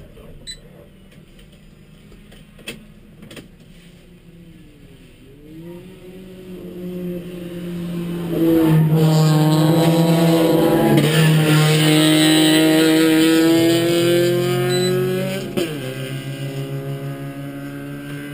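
Race car engines passing close by the stalled car, heard from inside its cabin. The engine sound builds over a few seconds, stays loud for about seven seconds, then drops in pitch and fades.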